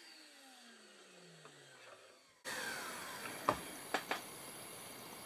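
Small vacuum motor of a We R Memory Keepers Mold Press spinning down, its pitch falling steadily for about two seconds. A few sharp clicks and knocks follow as the freshly formed plastic mold is handled.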